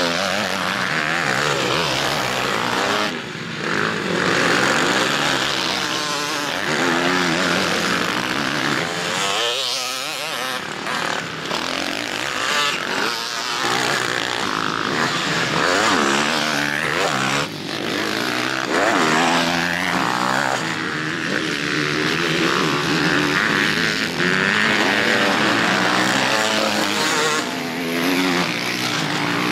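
Several motocross bikes racing on a dirt track. Their engines rev up and down as they accelerate out of corners and pass close by, with the pitch rising and falling again and again.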